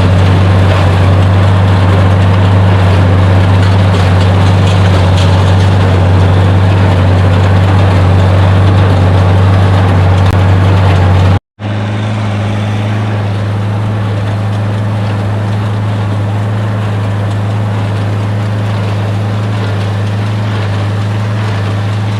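Farm tractor engine running steadily under load, loud and close. About halfway through there is a cut, after which the engine runs on slightly quieter and a little higher in pitch.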